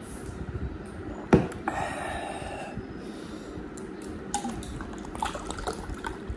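A glass set down with a sharp knock about a second in. Then Sprite is poured from a plastic bottle into a glass of ice cubes, with small clinks and splashes.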